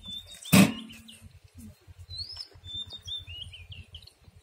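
Small birds chirping in short rising-and-falling notes, with one loud short knock about half a second in.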